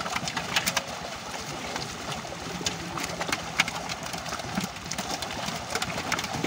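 Water splashing and sloshing as many live fish thrash in a net in shallow pond water while they are lifted out by hand, with irregular sharp splashes throughout.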